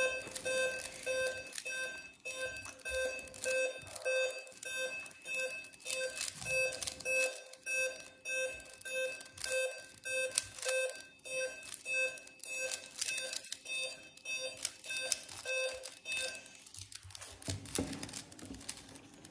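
Laptop mental-arithmetic flash-number program beeping: one short electronic beep with each number flashed on screen, evenly at about two a second, stopping about seventeen seconds in when the series ends.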